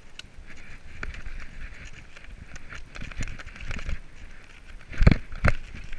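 Mountain bike rolling fast over a leaf-strewn dirt trail: tyres crunching through dry leaves while the bike rattles with many small clicks and knocks, and two heavy thumps about five seconds in, half a second apart, as it jolts over bumps.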